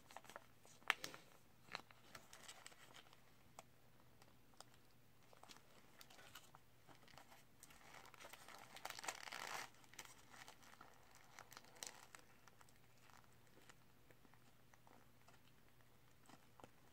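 Faint crinkling of a paper burger wrapper and a sauce packet being handled, loudest for about two seconds near the middle, among scattered small clicks and taps.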